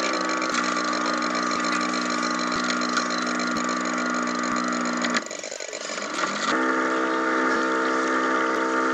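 Radio-controlled model landing craft's engine hum, steady and pitched. It drops away about five seconds in, then comes back with a short rise in pitch and runs on.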